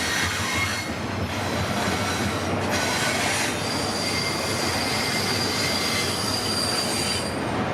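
CPKC freight train's cars rolling past as it slowly gathers speed: a steady rumble and clatter of wheels on rail with high-pitched wheel squeal. One long squealing tone holds from about halfway until shortly before the end.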